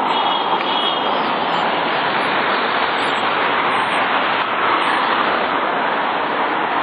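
Steady, loud road and wind noise of a moving car.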